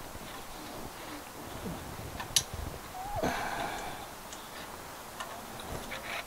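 Faint handling sounds from the Comet GP-9 antenna's tube sections as the top element is pushed further into the lower section: light ticks, one sharp click about two and a half seconds in, and a brief scrape a little after three seconds.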